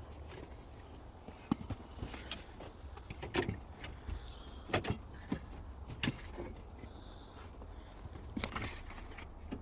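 Scattered light clicks and knocks of hands fitting an electrical connector onto a car starter motor, over a low steady hum.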